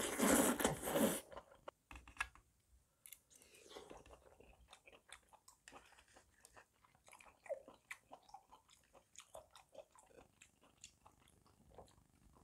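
A loud slurp of glass noodles lasting about a second, then close-miked chewing with many small wet mouth clicks.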